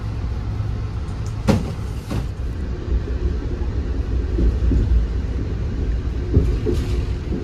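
Steady low rumble inside a moving passenger train car, with a few sharp knocks, the loudest about a second and a half in, and a faint steady tone joining after about three seconds.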